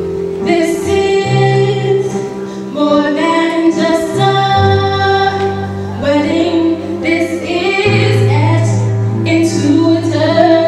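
A woman singing into a microphone over instrumental accompaniment, with long held notes and steady sustained bass notes beneath.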